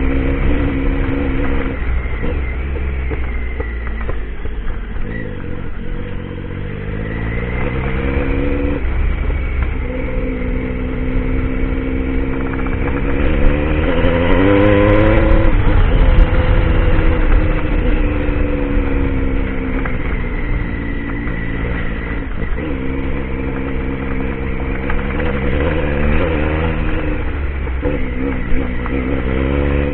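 Triumph Tiger adventure motorcycle's engine under way, its note rising and falling several times with throttle and gear changes. It climbs to its highest revs about halfway through, over a steady low rumble of wind and ground.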